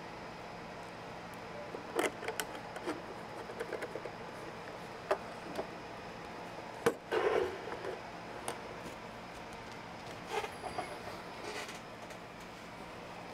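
Handling noise from closing up a Hewlett-Packard 8447 amplifier's metal case: scattered clicks and light knocks as a screwdriver fastens the cover, then a louder knock and a brief scrape about seven seconds in as the box is turned over. More clicks follow as it is set on the bench, all over a faint steady hum.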